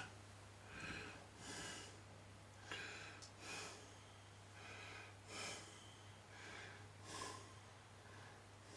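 Faint breathing close to the microphone: a series of short, soft breaths about once a second, over a steady low hum.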